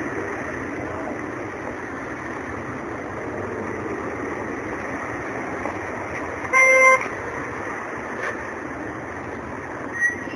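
Steady street traffic noise with one short vehicle horn beep, about half a second long, about two-thirds of the way through.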